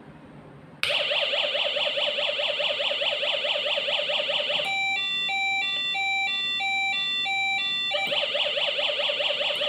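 Homemade electronic police-siren circuit sounding loudly. It starts about a second in with a rapid, repeating warbling sweep, switches midway to an alternating two-tone pattern for about three seconds, then returns to the rapid sweep.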